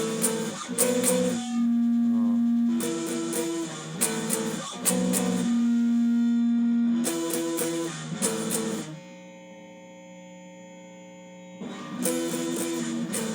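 Electric guitar playing a riff of power chords, groups of quick strikes alternating with held notes, repeated several times. Near the end a chord is left to ring and die away before the strikes start again; he is matching the chords by ear and finds them a little off.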